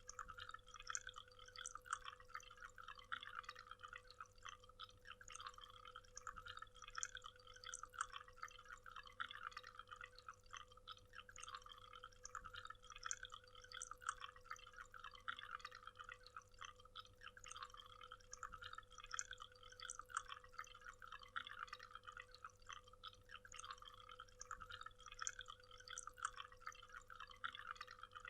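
Faint waterfall: water splashing and trickling steadily, with a light flutter. A faint steady hum runs underneath.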